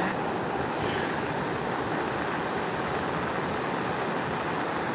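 Steady rushing of a flowing river, an even hiss of water with no separate events.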